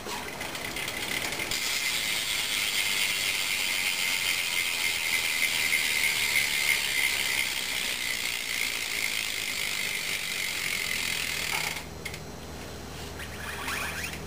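Rear freewheel hub of a 2011 Eastern Nitrous Cobra BMX bike, its pawls ratcheting in a fast, steady clicking buzz as the rear wheel spins freely. The buzz cuts off suddenly about twelve seconds in.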